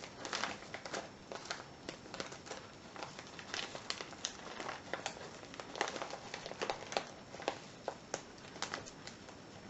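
Packaging being worked open by hand, crinkling and crackling with many irregular sharp clicks as it is pulled at.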